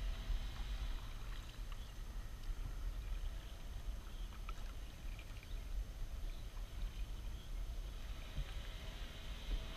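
Kayak being paddled: small splashes and drips from the paddle dipping in the water, scattered mostly through the first half, over a steady low rumble.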